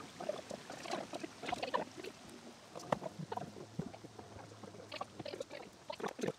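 Faint, scattered light knocks and clicks, with a faint low hum in the middle.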